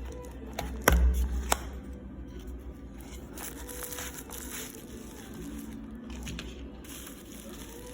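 Parcel packaging being handled and opened: plastic wrapping crinkling and tearing, with a sharp knock and thump about a second in.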